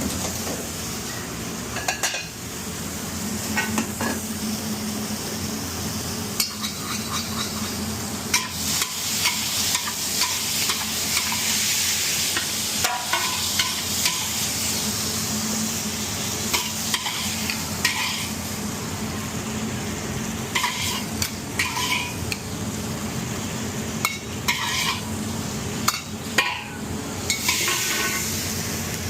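Food sizzling as it fries in a pan, stirred and scraped with a utensil in short, irregular strokes over a steady hiss.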